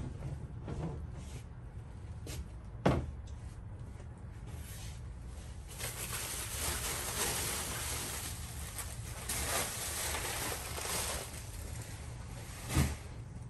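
A few sharp knocks from the plastic cabinet doors of a portable shampoo bowl station being handled, one about two seconds in, another a moment later, and a last one near the end. In the middle comes a long stretch of soft rustling.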